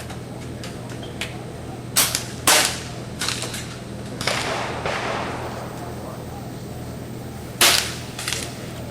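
Pellet air rifles firing on a benchrest range: sharp cracks about two and two and a half seconds in, a few softer ones soon after, and another loud crack near the end. A longer rushing noise rises about four seconds in and fades over a second.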